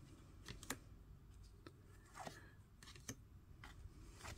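Faint handling of a stack of Topps Match Attax trading cards being thumbed through one by one, a soft, irregular click each time a card slides against the others.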